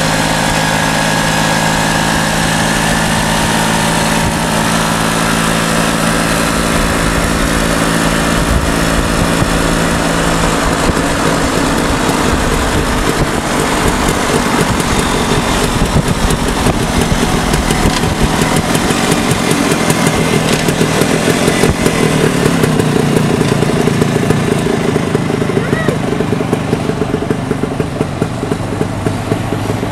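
Vintage Pannonia two-stroke motorcycle running as it rides along, heard from a car travelling beside it. The engine note is steady at first, then grows louder and choppier about halfway through before easing off near the end.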